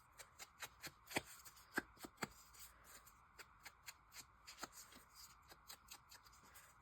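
Faint paper handling: soft, irregular taps and light rustles of card and paper pieces being moved and worked.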